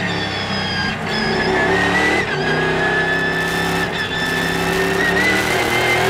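Onboard sound of a Morgan Aero8 GT race car's BMW V8 engine, running hard at high revs. The revs dip briefly about two seconds in, then climb steadily again toward the end.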